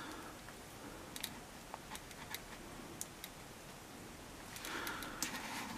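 Faint, scattered small clicks and rubbing of hard plastic as a wrist-mounted gun accessory's peg is worked into a tight hole on an action figure's forearm.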